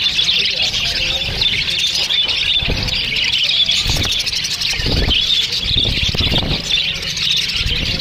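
A flock of budgerigars chattering all at once, a dense warbling twitter that never stops, with a few dull low thumps among it.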